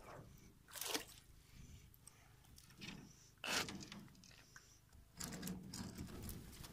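A wire-mesh fish trap being handled over a metal boat: a few scattered knocks and splashes of water, the loudest about three and a half seconds in.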